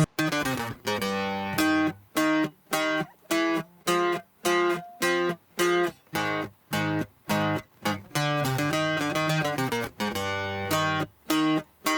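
A soloed bajo sexto track plays short, chopped strummed chords about twice a second, with silent gaps between them. About eight to ten seconds in it plays a longer run without gaps.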